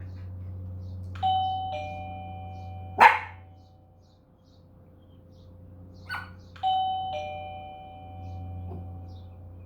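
Two-note ding-dong doorbell chime rung twice, about a second in and again about six seconds later. A dog gives one loud sharp bark about three seconds in and a shorter, softer bark just before the second chime. A low steady hum runs underneath.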